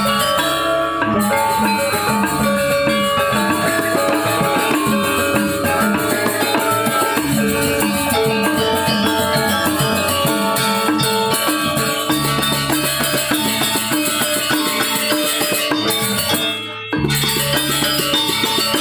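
Balinese gamelan gong ensemble playing a tabuh: many bronze metallophones ringing over drums and gongs, with a brief break in the sound near the end.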